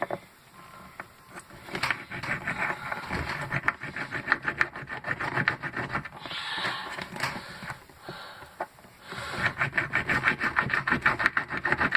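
A blade sawing and scraping at a battery's casing in quick back-and-forth strokes, in two bouts with a short pause between; the casing is hard to cut through.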